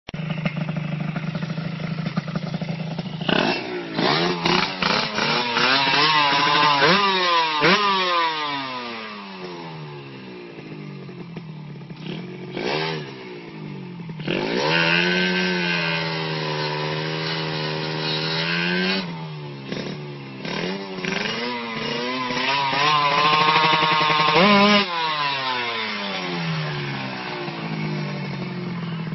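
Small motorcycle engine revved again and again, its pitch climbing and falling away between steady stretches, with one long high rev held for several seconds near the middle.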